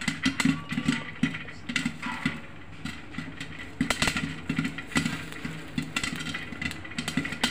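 Popcorn kernels popping inside a closed metal pressure cooker over a full gas flame: a rapid, irregular run of dull knocks and rattles against the lid. The popping thins out about two seconds in, then picks up again.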